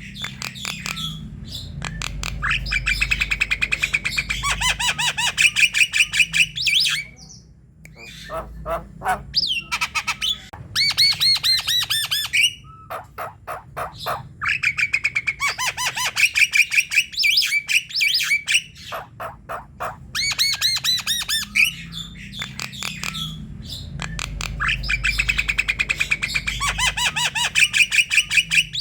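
Javan myna singing in repeated phrases of rapid, harsh chattering notes, each phrase a few seconds long with short pauses between.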